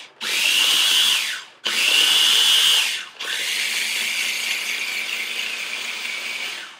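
Food processor pulsed in three runs, its motor whining and then dropping in pitch as it spins down after each short burst; the third run is longer and a little quieter. It is blending butter with chives and lemon juice into herb butter.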